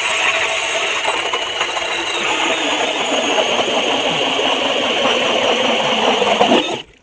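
Cordless drill spinning an ice auger, boring a hole through thick ice: a steady motor and cutting sound that stops suddenly near the end.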